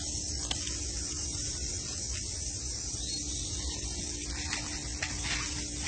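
Steady outdoor background noise: an even hiss with a low rumble and a faint steady hum, broken only by a few faint ticks.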